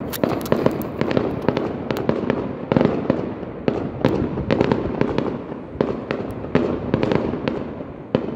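Aerial fireworks shells bursting in quick, irregular succession: many sharp bangs over a continuous rumble of overlapping reports.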